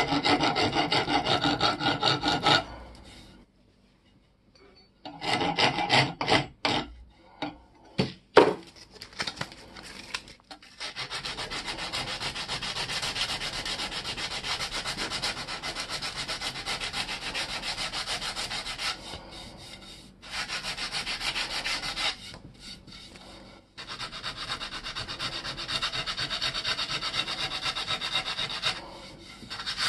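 Hand file scraping in quick, even back-and-forth strokes along the rusty metal haft of an antique hammer axe, with a few sharp knocks about eight seconds in. From about eleven seconds in, abrasive paper is rubbed steadily along the haft to clean off the rust, with short pauses.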